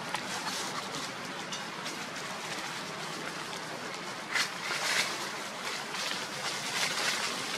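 Dry leaf litter rustling and crackling as two young macaques wrestle and roll on it, with a couple of louder crunches about four and a half and five seconds in.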